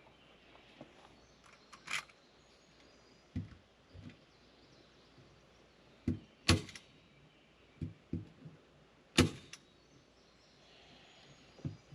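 Scattered sharp clicks and soft knocks of hands working on a door: three loud clicks about two, six and a half and nine seconds in, with lighter knocks between.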